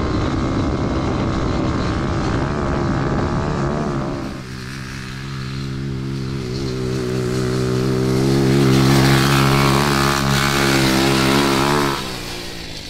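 High-output 140cc pit bike engine of an off-road go-kart running hard at speed, heard first from the driver's seat with wind noise, then from the side as the kart drives across the lawn. Its steady engine note grows louder and cuts off suddenly near the end.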